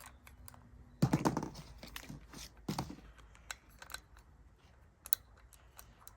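Clicks and light clatter of small metal parts and tools being handled on a workbench, with louder handling rattles about a second in and again near three seconds.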